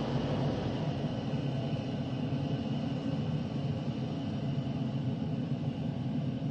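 Steam train station ambience: a steady low rumble from a train, with no distinct clanks, whistles or bursts.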